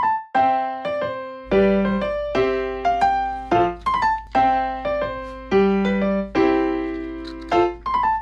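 Background music: a keyboard tune of short piano notes, each fading quickly, a new note or chord about every half second.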